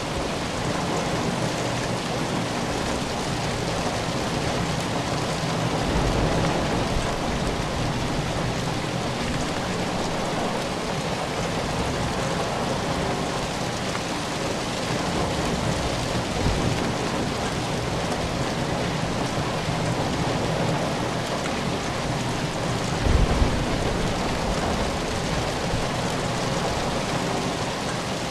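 Steady rain falling, an even hiss of drops. A few brief low rumbles rise under it, the strongest a short low thump about 23 seconds in.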